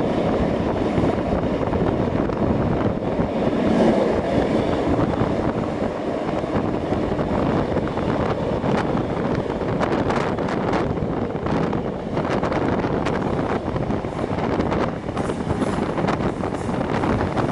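Passenger train running, heard from an open carriage window: a steady rumble of wheels on rail with wind rushing over the microphone. Scattered clicks and clacks of the wheels come in from about halfway.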